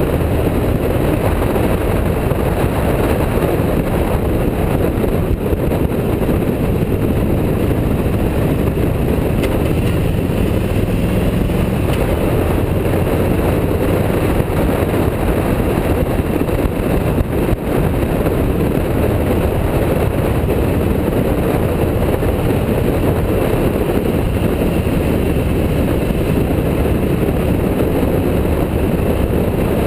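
Motorcycle running steadily at road speed, its engine drone mixed with a steady wind rumble on a bike-mounted camera.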